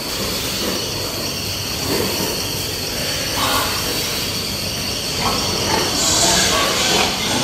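Pigs penned in a barn calling and squealing, with louder outbursts about halfway through and near the end, over a steady hiss.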